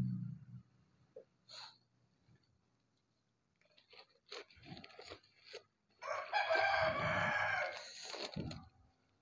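A rooster crowing once, a long call of about two and a half seconds starting about six seconds in. It is preceded by a few faint short knocks.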